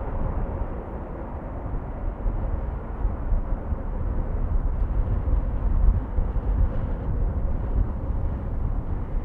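Airliner jet engine rumble from a passing aircraft, with gusty wind buffeting the microphone; a faint steady engine whine fades out near the end.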